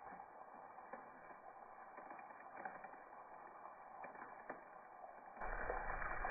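Faint handling taps and ticks. About five seconds in, diced bacon starts sizzling and crackling in fat in a cast iron Dutch oven, much louder than what came before.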